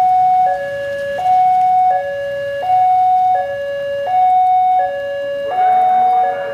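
Railway level-crossing warning alarm sounding a two-tone electronic signal, alternating a higher and a lower note about every 0.7 seconds, as the barrier comes down for an approaching train. From about five and a half seconds in, a second sound with rising pitches joins it.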